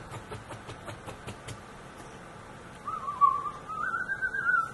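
A run of soft clicks, about five a second, for the first second and a half. Then, near the end, a person whistling one wavering note that slowly rises in pitch.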